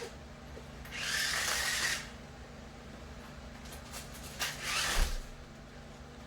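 Toy remote-control stunt car's electric motors whirring in a burst about a second in, then in two short bursts after about four seconds.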